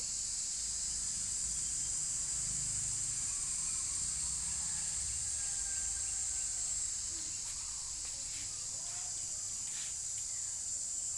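Insects droning steadily at a high pitch, with no break.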